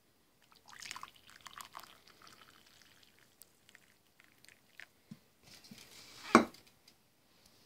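Green tea poured from a ceramic teapot into a mug: a splashing trickle that starts about half a second in and thins out over three seconds. A single loud knock follows about six seconds in.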